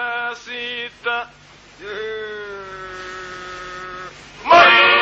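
Male voices singing a Himara polyphonic folk song unaccompanied. Short sung phrases give way, after a brief pause, to one long, slightly falling held note, and the full group comes in loudly near the end.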